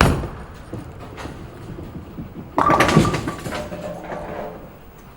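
Bowling: a heavy thud as the ball lands on the lane, a rolling rumble, then about two and a half seconds in a loud crash of pins clattering and ringing as they scatter, dying away over the next two seconds.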